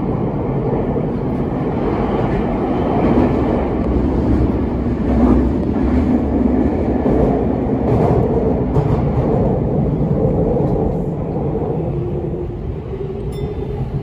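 Toei 6300-series commuter train running, heard from inside the passenger car: a steady rumble of wheels and running gear. It grows a little quieter near the end.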